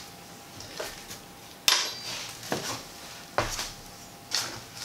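Several separate sharp clinks and clatters of small hard objects, such as tools or parts, being handled. The loudest comes about a second and a half in, and a faint steady hum runs underneath.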